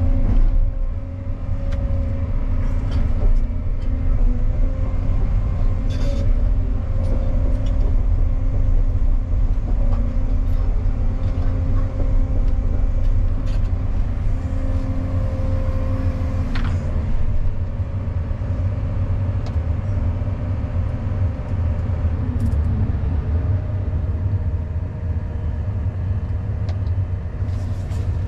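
Cat 335 hydraulic excavator's diesel engine running steadily under load, heard from inside the cab, with a few knocks and clanks as the bucket and arm work.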